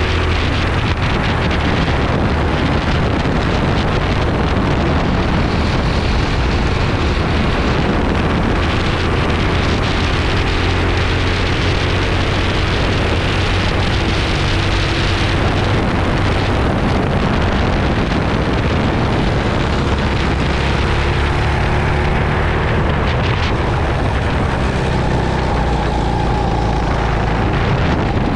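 Racing kart engine running hard at race pace, its note rising and falling as the kart accelerates and slows through corners, with wind on the microphone.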